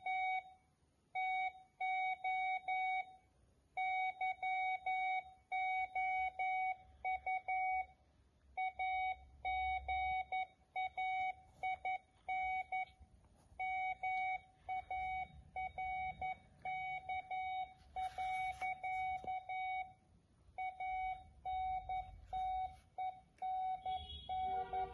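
Morse code (CW) audio from a recorded clip: a single steady beep tone keyed on and off in short dots and longer dashes, in groups with short gaps. Near the end, a different beeping at several higher and lower pitches joins in.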